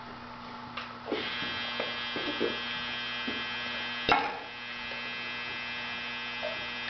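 Steady electrical hum, joined about a second in by a higher, even buzz, with a sharp click about four seconds in.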